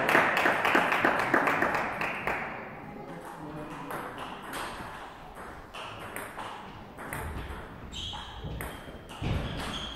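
Table tennis balls ticking and bouncing at irregular intervals.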